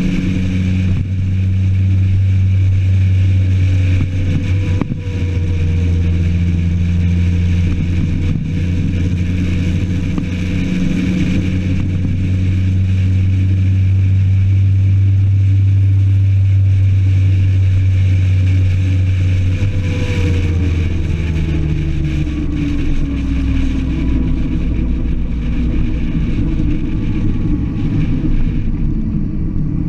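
Motorcycle engine running at a steady cruise, with wind rushing past. About twenty seconds in, the engine note falls away as the bike eases off and slows.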